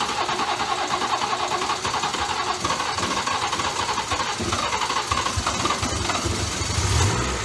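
BMW B58 turbocharged inline-six being cranked on its starter for several seconds, slow to fire because the fuel lines were drained for the injector replacement. It catches near the end with a brief flare before settling toward idle.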